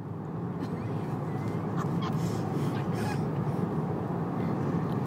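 Steady road rumble inside a moving car, with a baby's faint, short whimpering cries on top.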